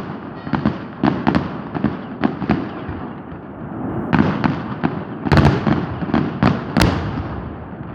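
New Year's Eve fireworks going off: a rapid run of sharp bangs and crackles over a rumbling background, easing off around the middle, then a dense cluster of loud bangs in the second half.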